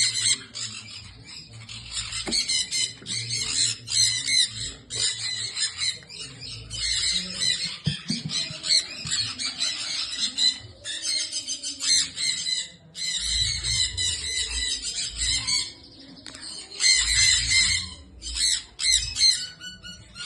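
Sun conures screeching: harsh, shrill squawks repeated in quick runs with short pauses between them.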